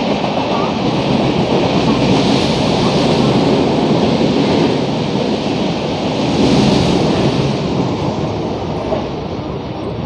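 Passenger coaches of an express train running through without stopping at speed: a steady rumble and rattle of wheels on the rails with a rush of air. It swells twice, then eases as the last coach passes.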